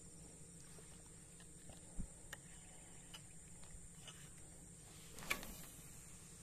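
Faint, steady high-pitched buzzing of insects, with a few soft clicks and one sharper click a little past five seconds in.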